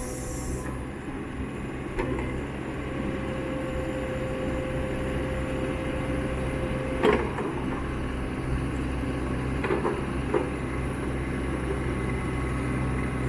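Kubota KX61-2 mini excavator's diesel engine running steadily, with a steady whine for a few seconds that stops with a sharp clank about seven seconds in, and a few lighter knocks later.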